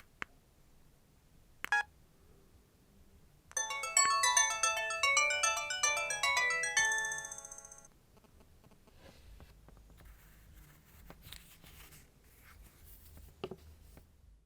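LG KP105 mobile phone's speaker playing a short polyphonic ringtone: a quick run of notes starting about three and a half seconds in, ending on a high held tone that fades out about four seconds later. A click and a brief beep come before it.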